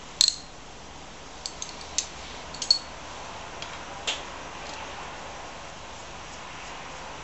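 Spanner and small steel bolts clinking against a Briggs and Stratton engine as its small governor bolts are undone. A sharp ringing clink comes just after the start, then a handful of lighter metal clicks through the first half.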